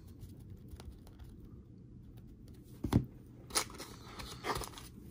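Faint crinkling and handling of trading cards and a card-pack wrapper, with a sharp knock about three seconds in and a few lighter ticks after it.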